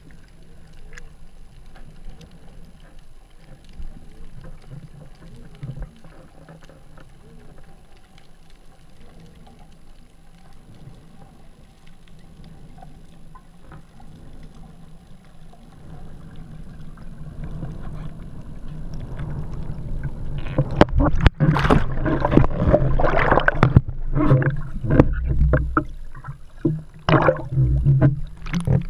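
Underwater sound heard through a GoPro's waterproof housing. A low steady hum with scattered faint ticks swells, from a little past halfway, into loud rushing and gurgling water noise with sharp knocks and splashes as the camera rises toward the surface.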